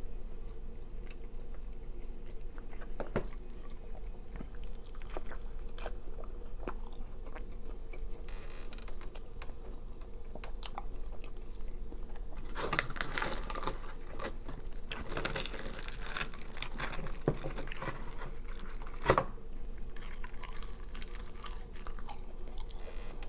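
A person chewing and biting food close to the microphone, with small crunches and mouth clicks that grow busier and louder about halfway through. A steady low hum runs underneath.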